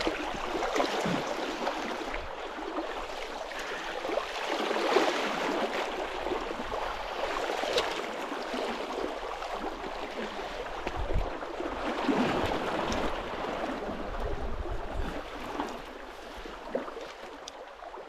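River water flowing, a steady rushing noise that swells and eases, with a few brief sharp sounds scattered through it.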